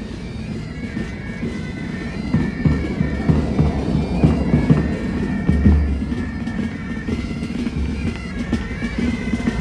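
Military pipe band playing: bagpipes carrying a melody over their steady drone, with heavy drum beats underneath.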